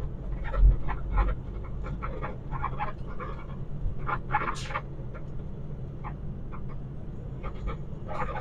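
Semi truck's diesel engine running low inside the cab as the truck rolls slowly, with a couple of low thumps about a second in. Short, irregular breathy puffs sound over the rumble throughout.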